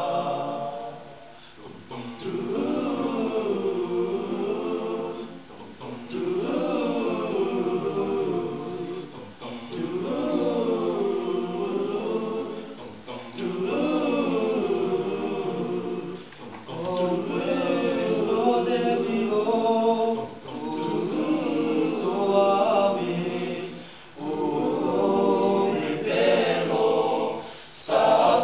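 Boys' choir singing unaccompanied, in repeated phrases of about three to four seconds, each ending in a brief breath pause.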